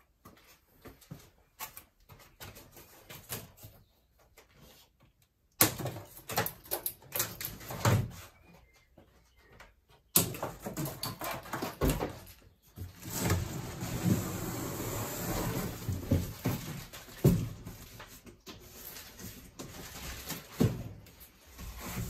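A large cardboard shipping carton being worked off a washing machine: irregular knocks, thumps and cardboard rustling, with a longer stretch of scraping as the box slides up and off.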